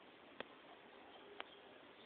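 Near silence: a faint steady hiss of room tone with two sharp ticks about a second apart. No snoring or breathing is heard.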